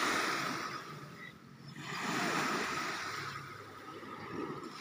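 Sea surf washing onto a sandy beach, a noisy wash that swells, dies down about a second and a half in, then swells again.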